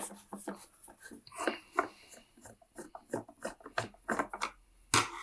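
Irregular small clicks, taps and scrapes of a screwdriver and hands working the screws out of a Numatic Henry vacuum cleaner's plastic top housing.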